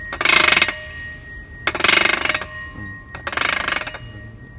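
Roller chain of a roller-shutter drive rattling over its steel sprocket and tensioner roller in short ratcheting bursts, three times about one and a half seconds apart.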